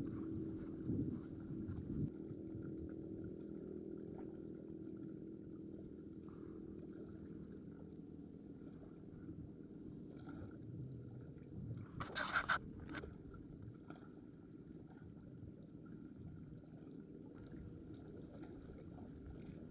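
Low, steady hum of a boat engine out on the water, fading away over the first several seconds, with a short burst of clicks about twelve seconds in.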